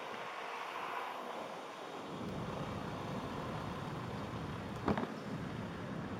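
Steady rush of wind and tyre noise while riding an Airwheel electric unicycle over asphalt. A low rumble joins about two seconds in, and there is a single sharp knock near five seconds.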